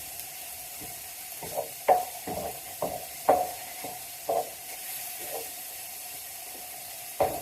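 Minced beef frying in a pan with a steady sizzle, stirred and scraped by a utensil in irregular strokes, the sharpest about two and three seconds in and again just before the end.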